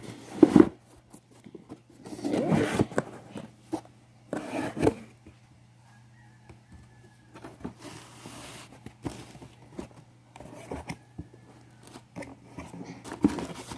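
Cardboard subscription box being opened by hand: several bursts of tearing and scraping, with rustling and light clicks in between.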